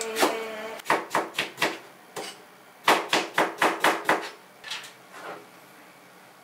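Kitchen knife chopping vegetables on a cutting board: two quick runs of about five or six knocks each, a second or so apart, then a couple of fainter strokes.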